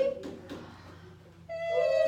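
Voices singing a wordless legato vocal slide. A rising glide ends right at the start, and about a second and a half in a new long note begins, sung by two voices a little apart in pitch, slowly sinking.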